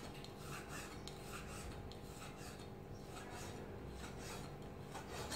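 Kitchen knife cutting raw pork into chunks on a wooden chopping board: faint, irregular scraping cuts, roughly two a second.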